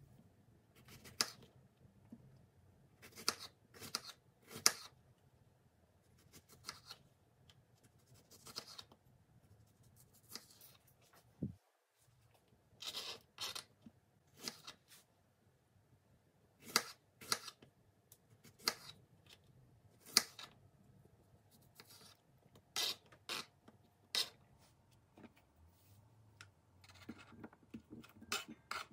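Kitchen knife chopping strawberries on a thin plastic cutting board: irregular sharp knocks of the blade striking the board, sometimes in quick pairs. Near the end, lighter scraping and clicking as the chopped pieces are pushed off the board into a bowl with the knife.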